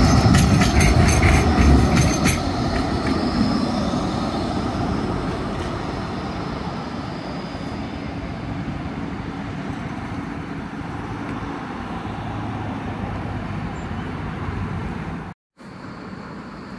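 Blackpool Bombardier Flexity 2 tram passing close on street track, a low rumble with a rapid run of wheel clicks over the rails in the first two seconds. The sound then fades steadily as the tram draws away.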